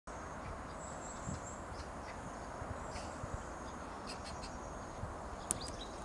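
Countryside field ambience: a high, steady insect trill that comes and goes, with scattered short bird chirps and clicks over a low steady rumble.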